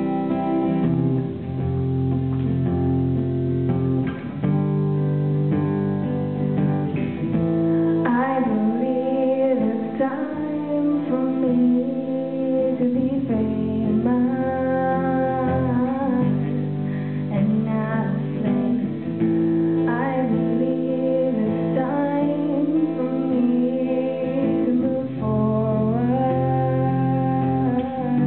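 Acoustic guitar strummed and picked in a song, with a voice coming in singing the melody a few seconds in.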